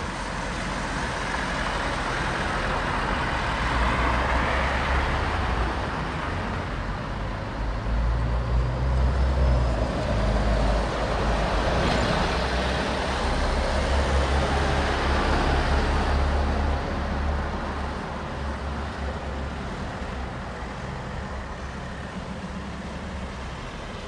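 Street traffic: motor vehicles passing with a deep engine rumble that builds about a third of the way in, stays loud through the middle, then eases to a steadier background of traffic noise.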